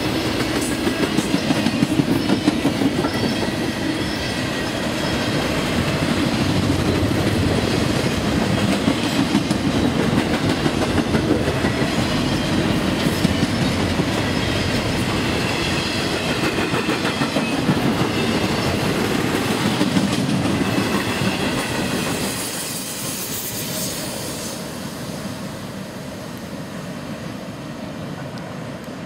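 Double-stack intermodal container cars rolling past, their steel wheels clicking rhythmically over rail joints, with a faint high wheel squeal at times. The loud rumble drops about 22 seconds in as the last cars go by, then fades as the train moves away.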